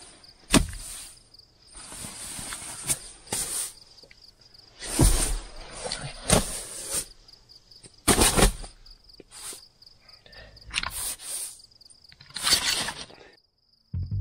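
Irregular rustling and shuffling of a sleeping bag and bedding as a person shifts around on a cot, with a steady high cricket trill behind it.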